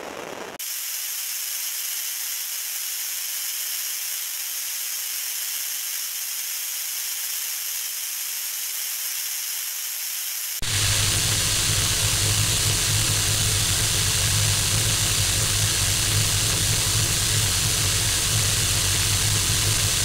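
Steady white-noise-type hiss that changes abruptly twice. About half a second in, a crackling noise gives way to a thin, bright hiss with no low end. About ten seconds in, that cuts to a louder, fuller noise with a steady low hum underneath.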